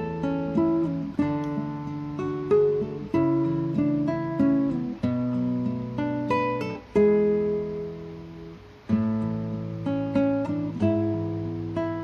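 Background acoustic guitar music: plucked notes and chords ringing on, with a pause in the playing a little before the last third.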